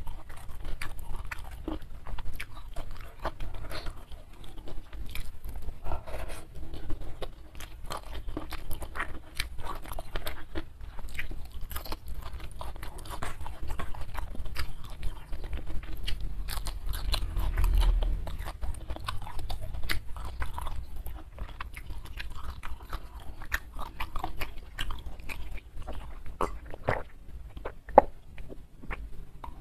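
Close-miked mouth sounds of a person eating rice, fried salted fish, prawns and leunca by hand: wet chewing with many irregular crunches and clicks. Near the end, a sip from a glass of water.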